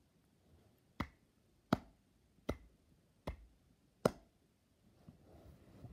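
Five hand claps, slow and evenly spaced about three-quarters of a second apart, followed by a faint rustle near the end.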